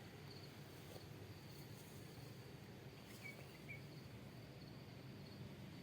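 Faint outdoor ambience with an insect chirping in a steady, quickly pulsing high trill. Two brief higher chirps come a little past the middle.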